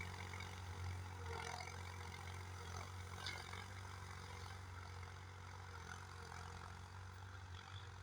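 Case IH JX55 tractor's diesel engine running steadily, heard faintly as a low hum.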